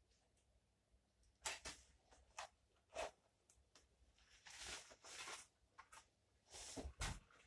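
Clothing rustling in soft bursts as a layer of winter gear is taken off, with a few sharp clicks and bumps from handling.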